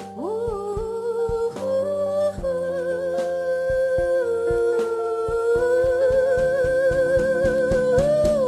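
A woman's voice holds one long wordless note with vibrato, sliding up into it at the start and falling away at the end, over held keyboard chords and a steady low beat in a live band performance.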